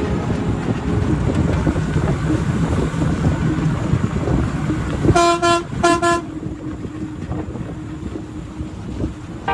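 Vehicle horn honking twice, two short blasts about five and six seconds in, over a steady rumble of traffic.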